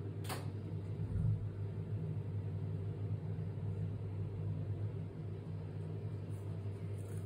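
Steady low hum, with a sharp click just after the start and a soft low bump about a second in.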